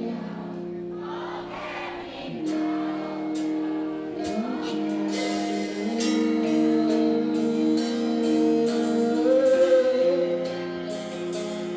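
A slow Thai pop-rock ballad sung with band accompaniment, with long held vocal notes. Drums and cymbals come in about two and a half seconds in.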